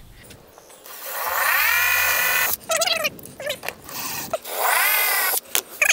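DeWalt cordless drill-driver pre-drilling screw holes through the aluminium storm door's bottom sweep. The drill runs twice, each time with a rising whine as the motor spins up: once about a second in for over a second and a half, and again briefly near the end, with short blips of the trigger in between.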